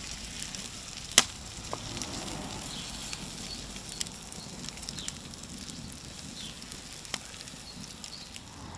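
Bacon sizzling in a homemade frying pan just taken off the fire, a steady hiss broken by a few sharp clicks, the loudest about a second in.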